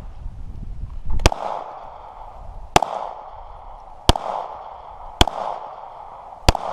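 Five rifle shots fired one at a time, about a second and a half apart, at steel targets 200 yards out; each shot cracks sharply and trails off in a short echo.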